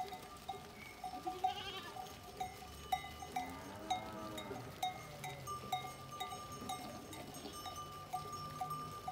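A flock of sheep and a few goats passing on foot over cobblestones. Bells on the animals clink about twice a second, with a couple of bleats about a second and a half in and again near four seconds, and hooves clicking on the stones.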